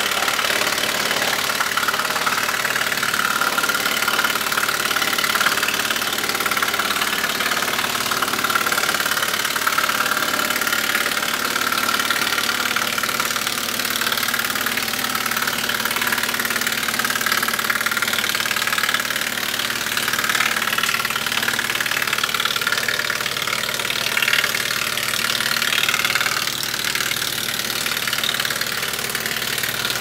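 Tractor-PTO-driven OXXN OX-8100 wood chipper running and chipping a branch drawn in by its hydraulic power-feed rollers, over the tractor's engine. The chipping noise eases a little near the end as the branch is used up.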